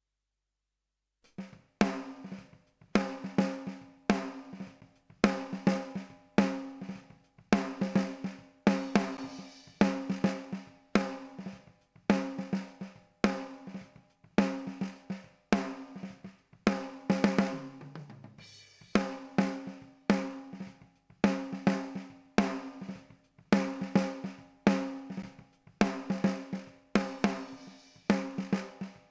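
Recorded drum kit playing a steady beat of snare and bass drum hits with ringing drums, after a silent second at the start, with a softer stretch and a low falling tone about eighteen seconds in.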